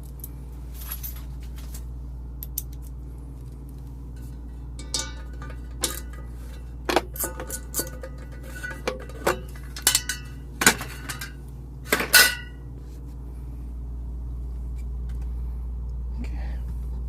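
A run of about a dozen sharp metallic clinks and clanks, with short ringing, between about five and twelve and a half seconds in, from metal parts or tools being handled, over a steady low hum.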